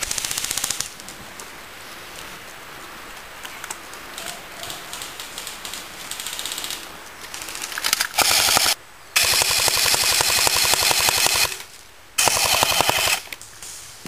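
Airsoft rifles firing full-auto bursts, a rapid clattering rattle. A short burst comes at the start, with fainter scattered shots after it. Three loud bursts follow from about eight seconds in, the middle one longest at over two seconds.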